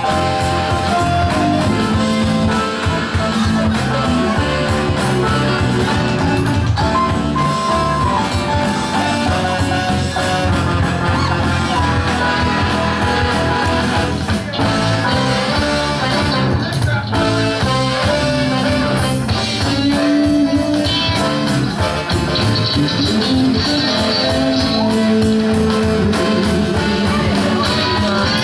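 Live rock band playing an instrumental break with guitar to the fore over bass and drums.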